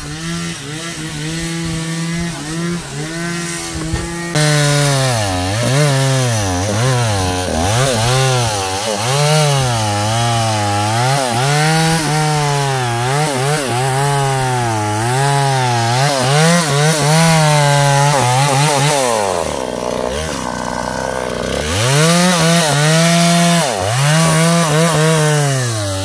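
Stihl chainsaw running at high revs, its pitch rising and falling again and again as it cuts teak wood. About twenty seconds in it drops to a low idle for a couple of seconds, then revs back up.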